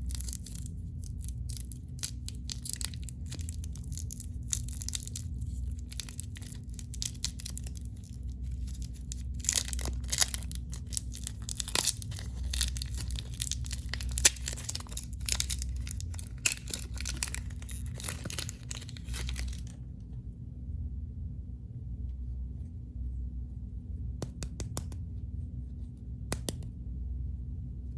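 Candy wrappers crinkling and tearing as sweets are unwrapped, dense crackling for about twenty seconds, then stopping, with a few single crackles near the end.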